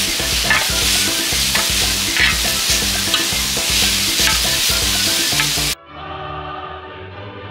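Minced meat and chopped onion sizzling on a hot multi-griddle as a spoon stirs and scrapes them around, with small clicks of the spoon on the pan. About five and a half seconds in the frying cuts off suddenly and music takes over.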